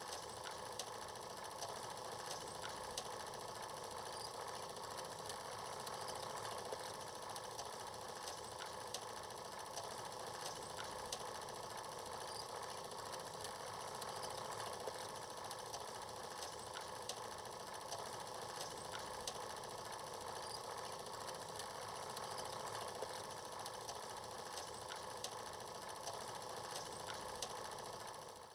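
Faint steady hiss and hum from an old silent-film transfer, with short crackles and clicks scattered throughout; it cuts off right at the end.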